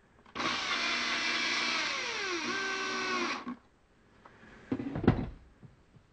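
Cordless drill driving a screw into a bench grinder's base for about three seconds; the motor whine drops in pitch partway through as the screw tightens, then stops. A few knocks follow about five seconds in.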